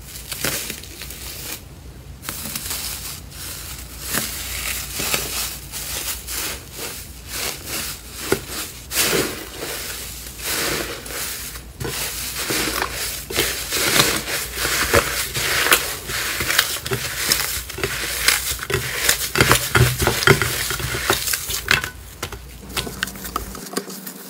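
Slime being squeezed and pressed by hand, giving a dense, continuous run of crackles and pops.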